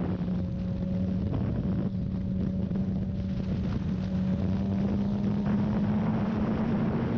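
Suzuki GSX-R sportbike engine running steadily at cruising speed, its note climbing a little in pitch about five seconds in, with wind rushing over the microphone.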